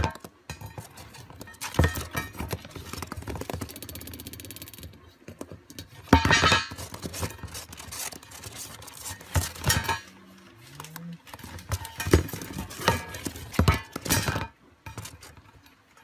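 A small dish being shoved and tipped by a lovebird across a cardboard floor: irregular knocks and clatters, with a couple of seconds of fast rattling as it wobbles on its rim.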